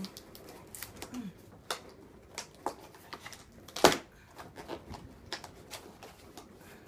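Hands working at the top of a cardboard laptop box: scattered scratches, taps and small snaps on the cardboard and tape, with one sharp, loud snap a little before four seconds in.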